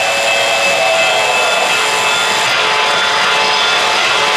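O-gauge model trains running on three-rail track: a steady, loud rolling rush of wheels and motors with a few steady whining tones over it, as a freight consist passes close by. The highest hiss drops away about halfway through.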